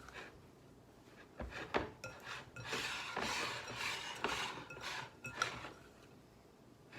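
A kitchen utensil scraping and knocking against a mixing bowl while a stiff butter-and-flour crust mixture is worked: a couple of knocks about a second and a half in, then a few seconds of scraping with small clinks.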